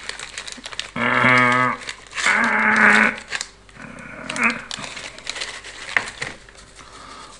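Two drawn-out, bleating, goat-like calls with a wavering pitch, followed by light crinkling and small clicks of candy packaging being handled.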